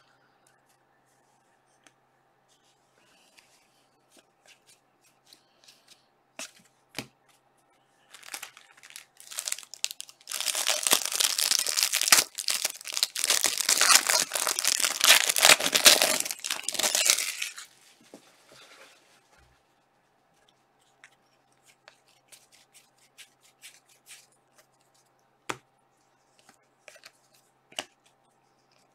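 Crinkly plastic trading-card pack wrapper being torn open and crumpled: a loud rustling that starts about ten seconds in and lasts about seven seconds. Scattered light clicks and taps of cards being handled come before and after it.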